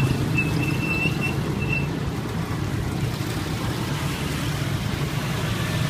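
A motor vehicle engine running steadily with a low rumble, and a thin high tone coming and going in the first two seconds.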